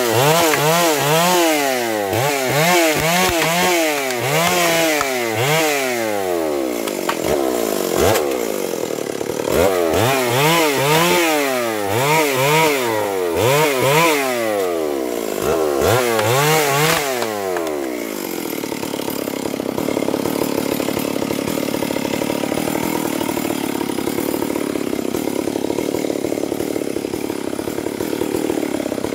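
Two-stroke chainsaw revved up and down over and over in quick, rhythmic swings of pitch, with a couple of short breaks. About two-thirds of the way in it settles into a steady, even run.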